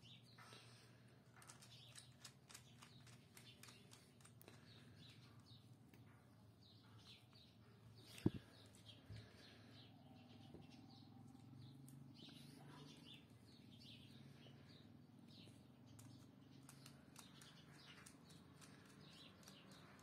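Near silence: faint bird chirps in the background and small clicks of wires being handled, with one sharp thump about eight seconds in.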